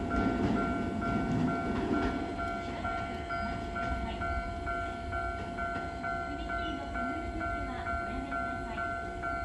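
Japanese railway level-crossing alarm ringing, an electronic ding repeating evenly about twice a second over a steady tone. Under it a train rumbles, loudest in the first couple of seconds and then easing off.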